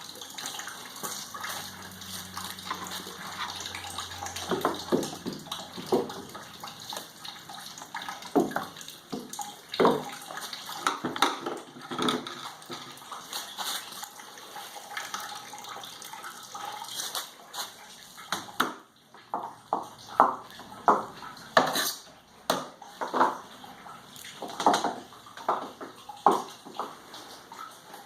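Wet paper-and-sawdust pulp being scooped and packed into a briquette press, with water sloshing and splashing and irregular knocks and clatters throughout.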